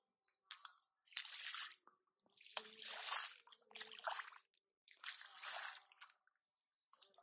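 Bare feet squelching in wet mud: about four steps, roughly a second apart.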